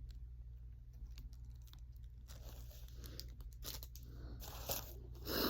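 Packaging being handled during an unboxing: crinkling and rustling of wrapping with small clicks and taps, louder in the second half.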